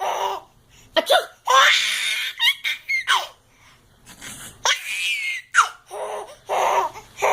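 Baby laughing in a string of separate bursts with short pauses between them.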